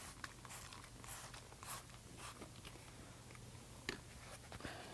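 Trigger spray bottle spritzing bug and smudge remover: four short, faint hissing sprays about half a second apart, then a single light click a little later.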